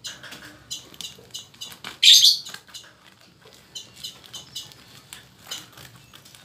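Plastic parcel wrapping crinkling and crackling as hands grip and pull at it to open it, with a louder crackle about two seconds in.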